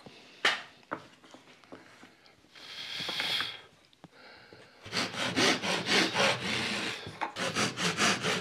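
A few light wooden clicks and a brief scrape as a notched wooden muntin is handled on a lattice frame. Then, about five seconds in, a thin-bladed pull saw cuts a small wooden muntin held in a saw guide, in quick strokes about four a second.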